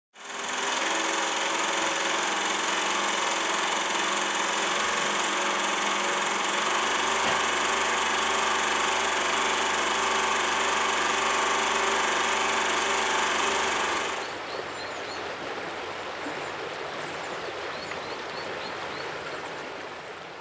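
Film projector running: a steady mechanical whir with a hum of several steady tones. About fourteen seconds in it drops to a quieter hiss with a few faint high chirps.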